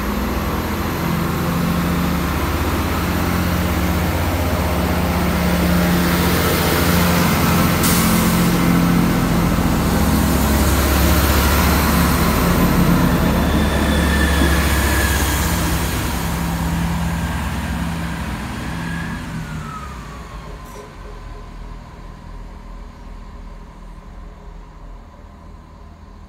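Class 166 Turbo diesel multiple unit pulling away from the platform. The drone of its diesel engines grows louder as the coaches pass, then fades steadily as the train draws off. About eight seconds in there is a short sharp click, and near the end a high tone slides down in pitch as the sound dies away.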